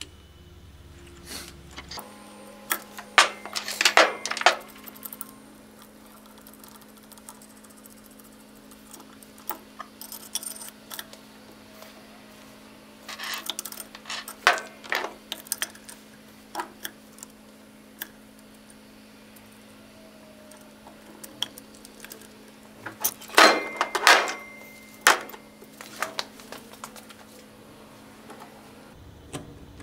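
Steel puller parts clinking and clattering as they are handled and fitted together: a bearing splitter, threaded rods and nuts, and a hydraulic ram. The sharp clicks come in three short clusters, over a faint steady hum.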